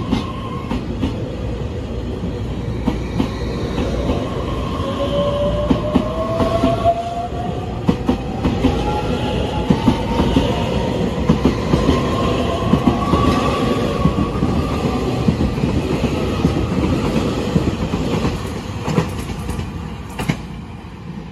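Taiwan Railways EMU3000 electric multiple unit pulling out of the station and accelerating past close by: a rumble with irregular wheel clatter over the rails, and a traction whine that climbs steadily in pitch as it gathers speed. The sound fades near the end as the cars move away.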